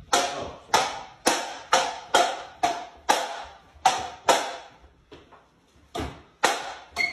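Table tennis ball being hit back and forth, clicking sharply off the paddles and the table about twice a second. The rally breaks off for about a second, then three more hits follow.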